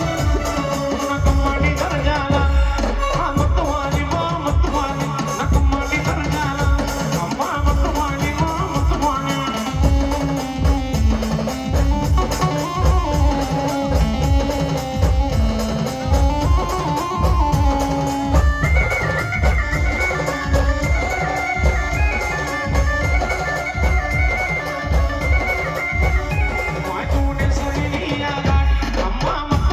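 Indian brass band playing a devotional folk tune: a brass melody over a steady, heavy drum beat, with a higher sustained melody line coming in about two-thirds of the way through.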